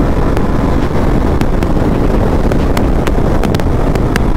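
Steady rush of wind over a rider's microphone on a KTM Duke 250 motorcycle at speed, with the bike's engine and road noise underneath, and scattered sharp clicks.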